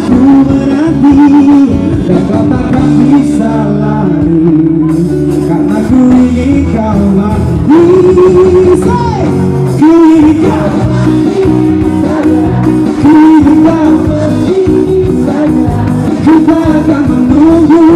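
Live band performing a pop ballad: a male singer's voice carries the melody over electric and acoustic guitars, loud and unbroken.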